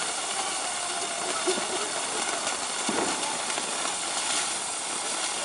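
Ground fountain firework spraying sparks with a steady hiss, with a couple of small pops in the spray.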